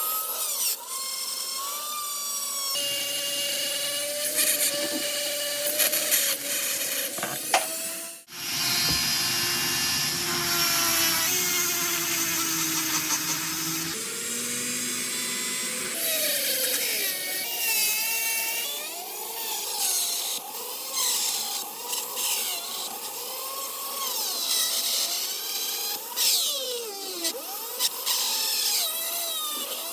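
A small power tool running and working against metal, its pitch wavering and sliding as the load changes. The sound breaks off and changes character abruptly several times.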